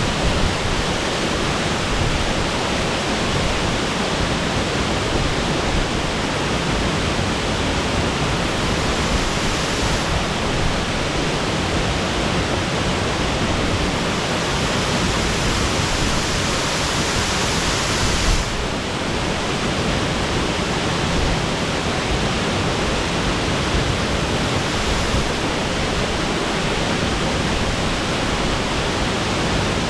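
Shasui Falls' waterfall pouring: a loud, steady rush of falling water with no break. It sounds hissier from about eight seconds in, then turns duller again abruptly after about eighteen seconds.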